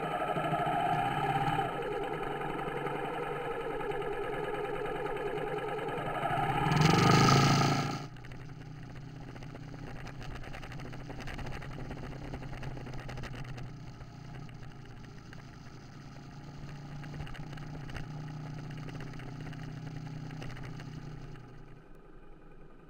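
Yamaha Serow dual-sport motorcycle's single-cylinder engine running on the move, its pitch rising and falling through the first few seconds with a loud surge about seven seconds in. It then runs quieter and steadier, and the sound drops off about a second before the end.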